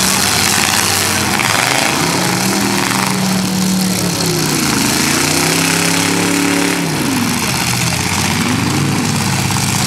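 Several demolition derby cars' engines running and revving, their pitch rising and falling again and again, over a loud steady din of exhaust noise.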